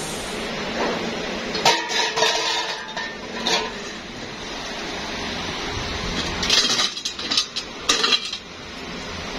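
Painted metal tractor air filter housings clanking and clinking against one another as they are dropped onto a pile and handled. Clusters of clatter come about two seconds in and again near the end.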